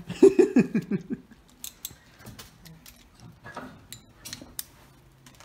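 Scattered light metallic clicks and clinks of a hand ratchet and socket extensions being handled and fitted together.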